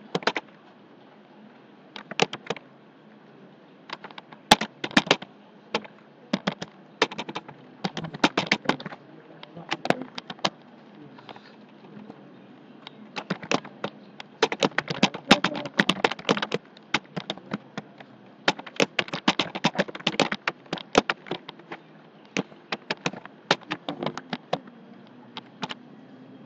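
Computer keyboard typing: quick runs of keystroke clicks in irregular bursts, with a pause of about two seconds near the middle.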